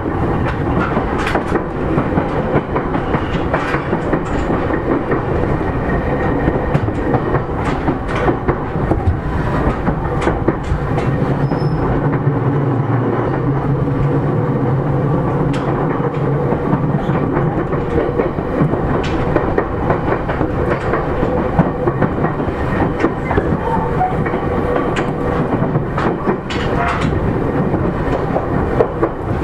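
JR East E231 series 3000 commuter train running: steady rumble of the wheels on the rails, with irregular clicks as the wheels pass over rail joints, and a low steady hum for several seconds around the middle.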